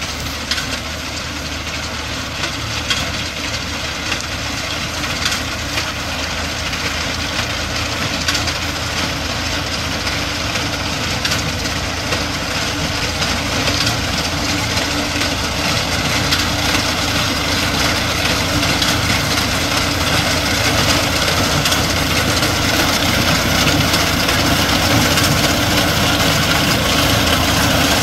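Diesel tractor engine running steadily while driving a front-mounted reaper binder through standing wheat, growing gradually louder as the machine comes closer.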